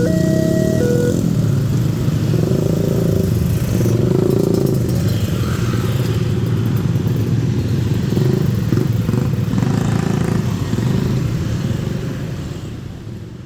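A level-crossing warning bell rings its alternating two-tone chime and stops about a second in. A loud, steady rumble with clatter, typical of a train passing at speed over the crossing, goes on and fades away near the end.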